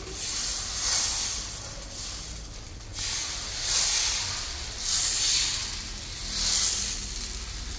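Dosa batter sizzling on a hot dosa tawa as a steel ladle spreads it out in circles; the hiss rises and falls several times.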